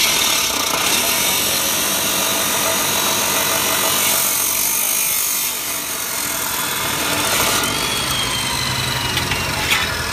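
A 14-inch abrasive cut-off wheel on a chop saw grinding through a steel bar with a loud, steady, harsh screech. Near the end the cut finishes and the saw runs free with a lower hum.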